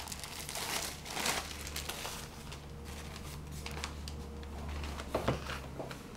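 Newspaper pages rustling and crinkling as they are handled and leafed through, in irregular bursts, with a steady low hum underneath.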